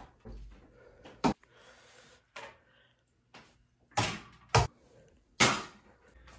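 A small ball thrown at a mini wall-mounted basketball hoop, knocking against the wall and backboard: several sharp knocks a second or so apart, the loudest about five and a half seconds in.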